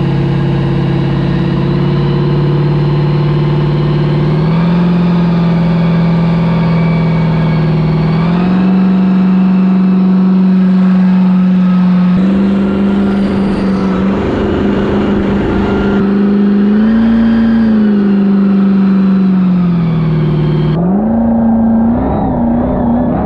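6.0-litre LS V8 engine in a Yamaha WaveRunner FZR jet ski running under way. Its note steps up in pitch several times as the throttle opens, then near the end drops back and rises again.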